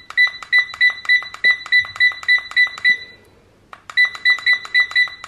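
A BT21 x Royche LED digital desk clock beeping once for each button press as its minutes are stepped up, short high single-tone beeps about three a second, each with a light button click. The beeps stop for about a second near the middle, then carry on.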